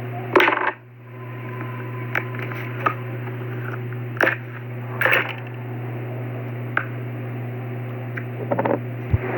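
Novelty putty and its plastic packaging being handled: a short rustle about half a second in, then scattered small clicks and taps, over a steady low hum.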